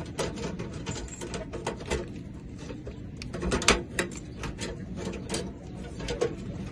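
Irregular metallic clicks, knocks and rattles of a mailbox lock being handled and tried in the mailbox door, with one louder knock near the middle.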